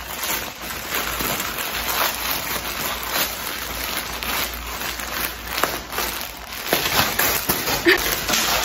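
Plastic courier mailer bag crinkling and tearing as it is pulled open by hand, a dense run of crackles and rustles.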